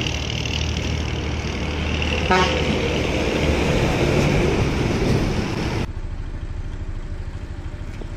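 Horn of a Hino Road Bullet bus blowing in one long, loud blast that cuts off suddenly about six seconds in, after which the bus's engine is heard running.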